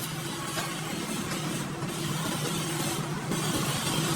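Metal lathe running at a steady speed, its motor giving an even hum.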